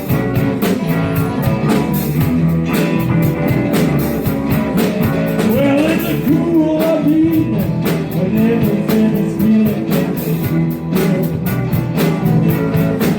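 Live blues band playing with a steady drum beat, bass and a lead electric guitar bending notes.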